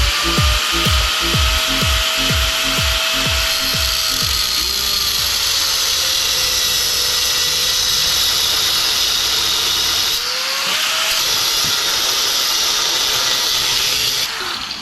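Electronic background music: a quick run of falling bass thumps over the first few seconds, under long sweeping tones that rise, hold and slowly sink, with another upward sweep about ten seconds in.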